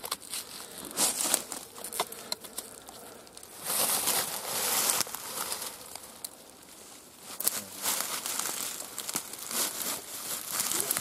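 Footsteps crunching through dry fallen leaves and pushing through brush, in uneven spells of rustling with quieter stretches between.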